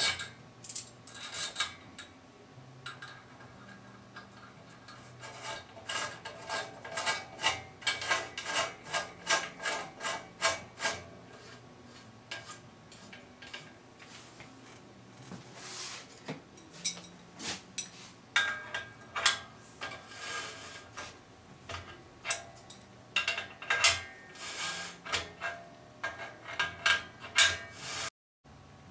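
Bottom-bracket facing tool's cutter shaving the face of a steel bicycle frame's bottom-bracket shell: metal scraping in short rasping strokes, about two a second, in two long runs with pauses between.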